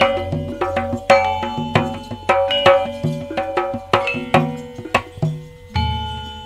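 Percussion music accompanying a kuda kencak dancing-horse show: tuned metal percussion struck at about three or four strokes a second, each stroke ringing, over a low drum beat. A heavier low drum stroke comes near the end.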